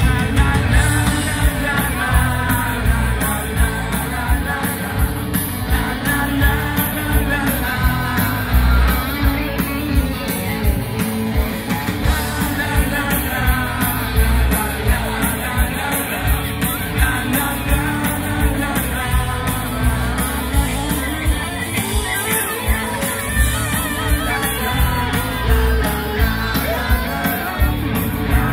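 Live band music with a singer and a steady beat, played loud over an outdoor PA, with the crowd shouting along.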